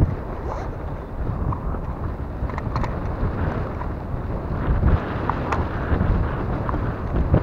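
Wind buffeting the camera microphone on a small open boat at sea: a steady low rumbling rush, with a few faint ticks.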